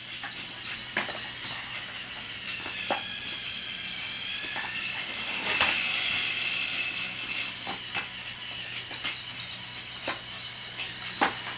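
Battery-powered toy Thomas train running on plastic track, its small motor giving a steady high whine that grows louder in the middle, with a sharp click every second or two.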